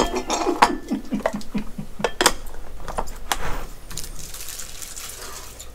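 A hand rummaging through wrapped hard candies, Jolly Ranchers, in a candy dish: a quick run of small clicks and wrapper rustles that thins out after about three and a half seconds.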